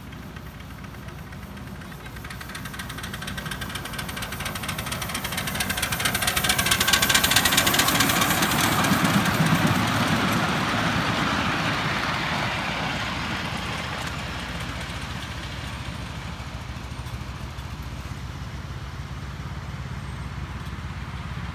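7¼-inch gauge miniature Bagnall steam locomotive hauling a train of passenger cars past. It grows louder as it approaches, is loudest about seven to ten seconds in, then fades as it moves away.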